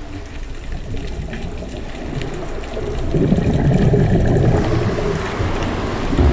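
Underwater sound picked up by a diver's camera: a low, rushing water noise that swells to a louder rumble from about three seconds in.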